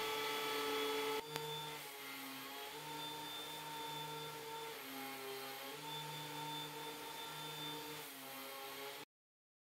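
DeWalt DW734 benchtop thickness planer running as an ash board feeds through it, a steady whine with several tones. It is louder in the first second, drops in level after a click, runs on, then cuts off abruptly near the end.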